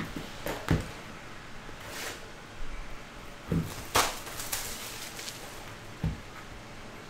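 Sealed cardboard trading-card boxes being picked up and set down on a table: a handful of scattered knocks and taps, the sharpest about four seconds in.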